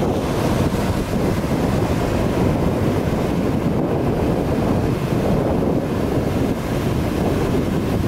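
Wind blowing hard across the microphone, a loud, steady rush.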